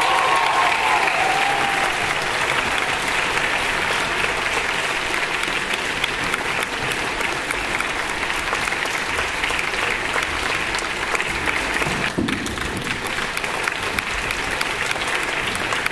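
A large audience applauding, a steady sustained round of clapping.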